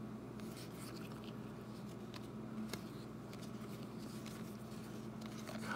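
Stack of baseball trading cards flipped through by hand: faint, scattered clicks and slides of card stock over a low steady hum.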